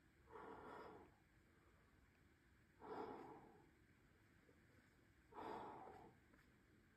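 Three hard exhalations, about two and a half seconds apart, from a rock climber straining through the moves of a hard route.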